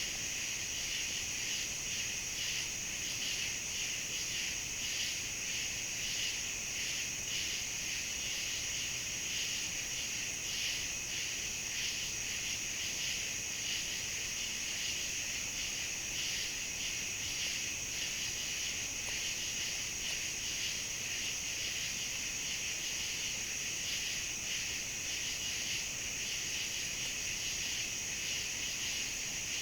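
Steady chorus of crickets and other insects, a dense high trilling that pulses evenly and never stops.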